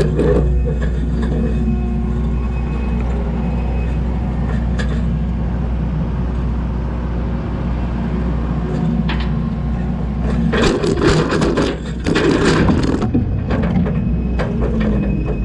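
Skid steer's diesel engine running steadily under work. About ten seconds in come a few seconds of loud cracking and scraping, typical of the tooth bucket breaking up and dragging concrete slab.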